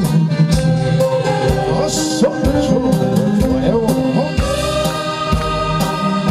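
Korean trot song performed live: a male singer's voice with vibrato over instrumental accompaniment with a steady beat.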